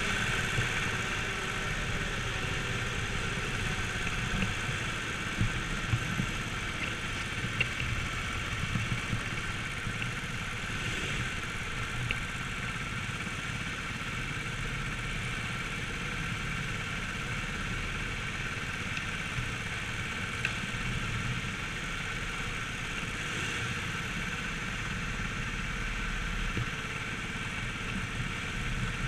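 Go-kart running laps on a track, heard from on board: a steady motor drone over a low rumble, with a few light knocks.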